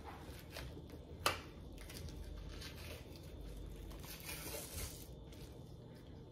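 Faint rustling and tearing as gloved hands grip and pull the thin membrane off the back of a rack of raw spare ribs, with a sharp click about a second in.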